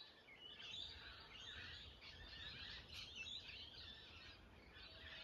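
Faint birdsong: several birds chirping and singing continuously in overlapping high, quick phrases, over a faint low rumble.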